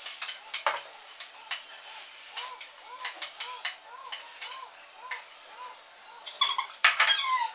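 Metal spoon clinking and scraping against a ceramic plate in quick, irregular strokes, loudest near the end. Behind it, a faint high chirp repeats about three times a second.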